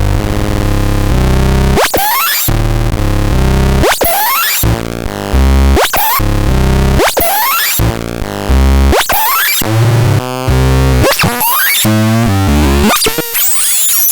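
Electronic sound effects from the AZGAD M36 being demonstrated: loud synthetic tones stepping up and down in pitch, with swooping sweeps, changing to a new pattern about every two seconds.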